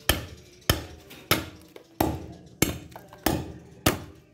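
A machete chopping into a kamagong hardwood post in a blade test. There are seven sharp chops about two-thirds of a second apart, each dying away quickly.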